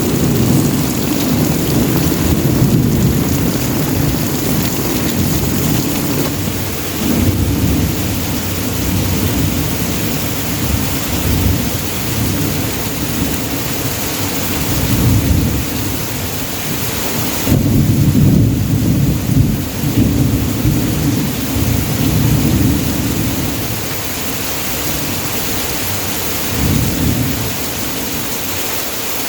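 Heavy downpour: a steady hiss of rain over a deep rumble that swells and fades several times, easing somewhat near the end.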